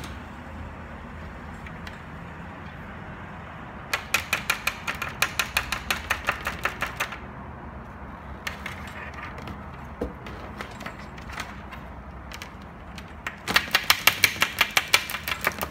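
Innovv K1 motorcycle DVR unit rattled and knocked rapidly against a tabletop, about seven sharp knocks a second, in two bursts of about three seconds each, one starting about four seconds in and one near the end, with a single knock in between. This is a test that its cable connection stays firm.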